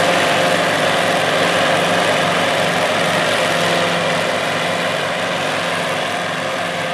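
Sperry-New Holland 1880 Crop Cruiser self-propelled forage harvester running under load while chopping corn and blowing silage into a trailer, mixed with the engine of the tractor pulling the trailer alongside. A steady engine drone with a rushing of chopped crop over it, slowly fading as the machines move away.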